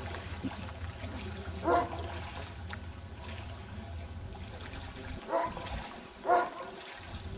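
Floodwater sloshing as a person wades through it, under a steady low hum that drops out about five seconds in. Three short, loud pitched calls break in, one about two seconds in and two near the end.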